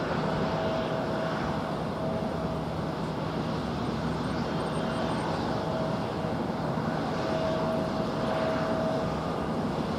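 Four-engine Boeing 747 freighter taxiing: a steady jet-engine hum with a faint whining tone that comes and goes.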